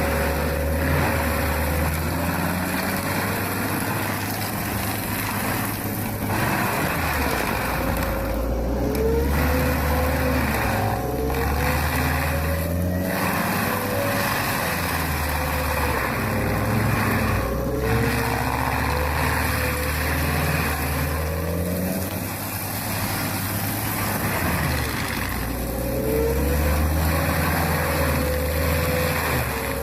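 Heavy forestry machine's engine working under load, its pitch rising and falling over and over above a steady rumble of machine noise.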